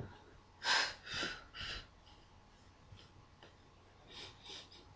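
A woman's short breaths while she does the Pilates hundred: three quick puffs about a second in, then two fainter ones near the end.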